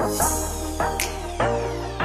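Electronic background music: short plucked synth notes over a steady bass, with a high sweep falling in pitch across the whole stretch.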